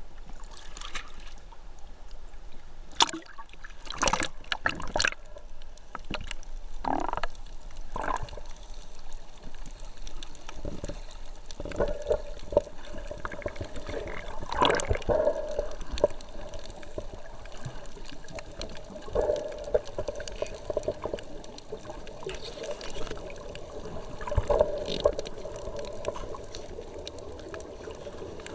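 Seawater splashing and sloshing against the camera at the surface, with several sharp splashes in the first few seconds. Then muffled underwater sound with recurring bursts of bubbles every few seconds, the exhaled air of scuba divers.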